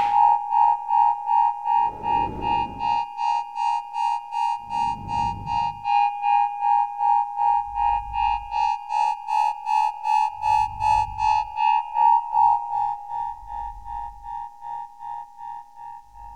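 Synthesized electronic pulse beeping about two and a half times a second, with a noisy whoosh and low thump roughly every three seconds. The sound fades somewhat near the end.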